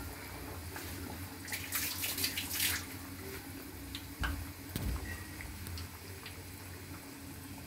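Corn pakoras deep-frying in hot oil in a steel pan: a steady sizzle, with a burst of crackling about two seconds in and a few single pops after it.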